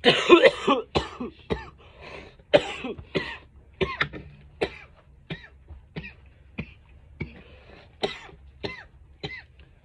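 A man coughing hard after inhaling vapour from a delta-8 THC vape cartridge: a loud, heavy coughing fit at the start, then a long string of shorter, hacking coughs, one every half second to second.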